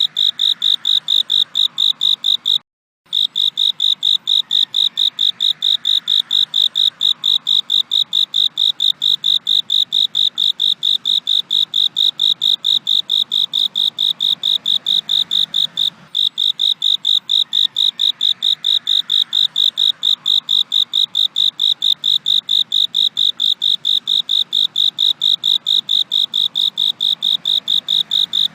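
A cricket chirping in a fast, even rhythm of about four high-pitched pulses a second, cutting out briefly about three seconds in.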